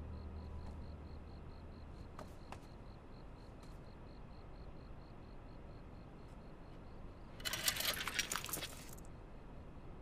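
A bunch of metal keys jingling in one burst of about a second and a half, about seven and a half seconds in.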